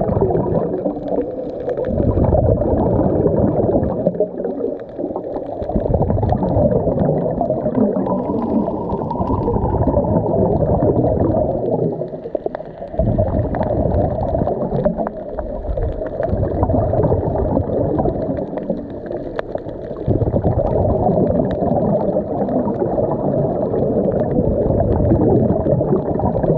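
Scuba regulator exhaust bubbles gurgling underwater. The sound is heavy and muffled, coming in surges of a few seconds with short breaks between them.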